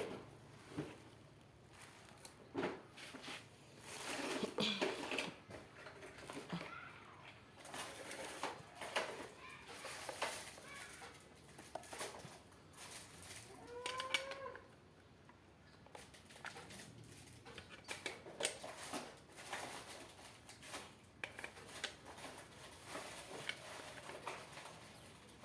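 Faint scattered clicks and knocks, with a chicken clucking briefly about 14 seconds in.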